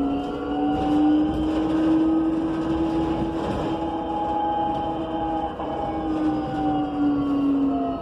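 Electric whine of a 2019 BYD K9M battery-electric bus's two TYC-150A in-wheel traction motors, heard inside the cabin over a low road rumble. The whine rises slowly in pitch over the first few seconds as the bus gathers speed, holds, then sinks gently near the end as it eases off.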